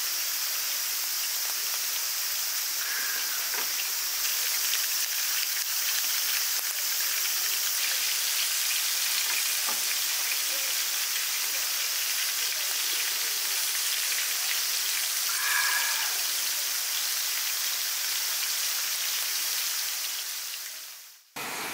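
A steady hiss that fades out shortly before the end.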